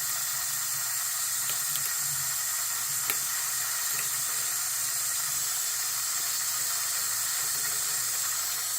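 Water running steadily from a tap into a sink, with a few faint clicks in the first half.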